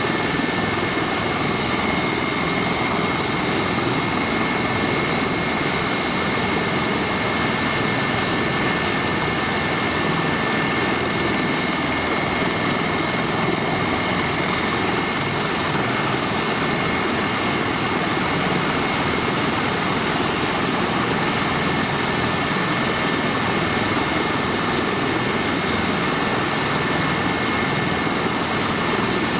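Eurocopter EC135 twin-turbine helicopter running with its rotor turning: a constant rush of engine and rotor noise with a steady high turbine whine.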